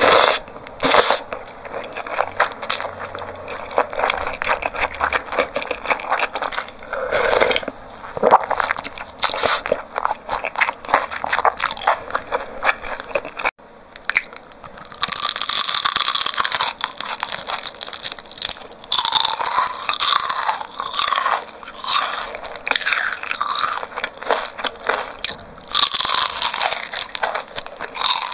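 Close-miked eating sounds: wet chewing and slurping of cold noodles for the first half, then, after a break about halfway, loud repeated crunching as a person bites into crispy deep-fried chicken.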